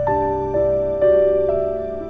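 Slow, soft background music: sustained keyboard notes, a new note entering about every half second.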